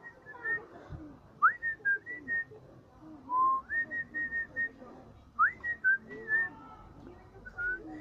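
Whistling: several short phrases, most opening with a quick upward sweep and going on with a few short notes held at about the same high pitch.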